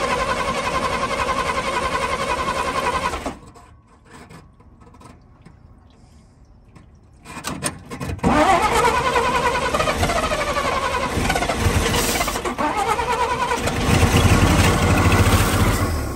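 1954 Dodge truck engine running, then cutting out about three seconds in; after a few seconds' lull it is cranked and catches again about eight seconds in and runs on, with a heavier low rumble near the end.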